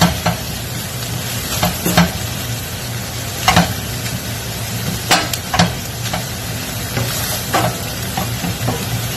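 Ground beef and onions sizzling in a stainless steel frying pan while being stirred with a wooden spatula, which knocks and scrapes against the pan every second or two.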